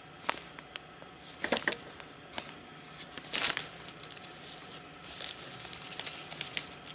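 Clear plastic bags holding artist trading cards crinkling and rustling as they are handled and set down on a pile of other bagged cards, in short scattered bursts, the loudest about three and a half seconds in.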